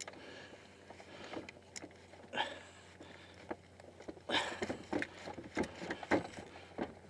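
Handling of a Minn Kota i-Pilot trolling motor as its locking collar is slid down the shaft and the motor worked into its mount: scattered clicks, knocks and scrapes, with a cluster of knocks about four to six seconds in.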